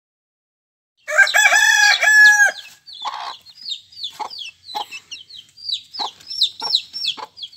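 A rooster crows once, starting about a second in. After it, karinkozhi (black chicken) chicks peep in rapid high falling chirps, with a few short lower clucks among them.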